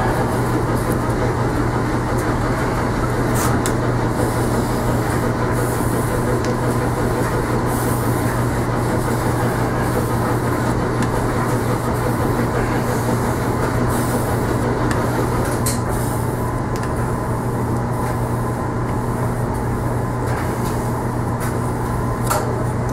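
A steady low hum and rushing noise running on evenly, with scattered light ticks, under the wet scraping of a steel plane blade being honed by hand on a 12,000-grit waterstone.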